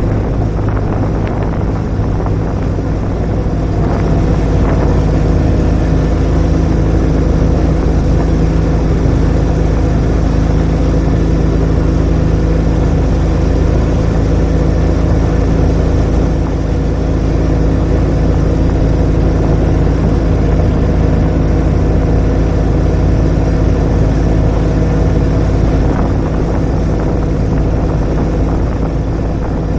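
Small utility vehicle's engine running steadily under way, a constant low drone with a steady engine tone.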